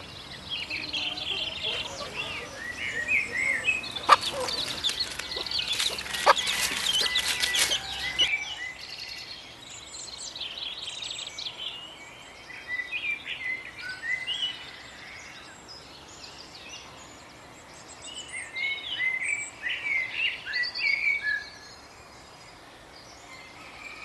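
Birds chirping and singing, many short calls scattered throughout. During the first eight seconds or so they sit over a crackling, rustling noise with a few clicks, which cuts off abruptly.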